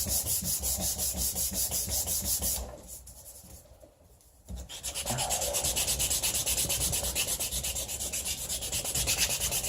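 Sanding the oak vise-jaw blocks, a steady rasping scrub that stops for about two seconds near the middle, then starts again.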